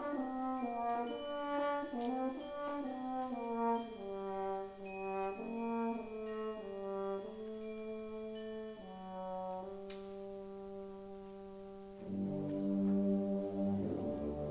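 School concert band playing a quiet, slow passage: a melody of held notes moving step by step over sustained chords. The fuller band swells back in about twelve seconds in.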